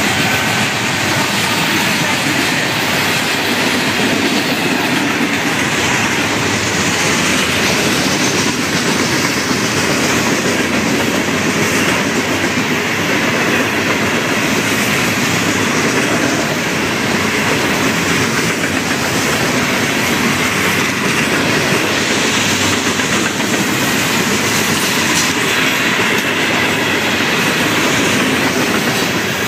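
Florida East Coast freight cars rolling past close by: a loud, steady rumble of steel wheels running on the rails.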